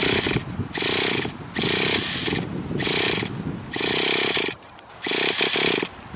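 Traxxas Nitro 4-Tec 3.3's TRX 3.3 nitro engine being cranked over for starting in repeated rasping strokes, about one a second, without firing.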